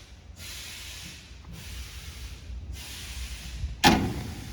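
High-speed can filling line running: pneumatic valves hiss air in regular bursts, about one every second and a quarter, over a low steady machine hum. A loud, sharp clank comes near the end.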